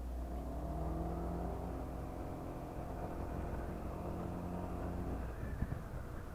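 Honda PCX scooter's single-cylinder engine on its stock exhaust pulling under throttle at a steady pitch for about five seconds, then easing off.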